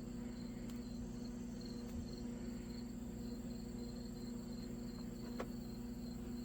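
Crickets chirping steadily over a low steady hum, with two faint clicks, one about a second in and one near the end.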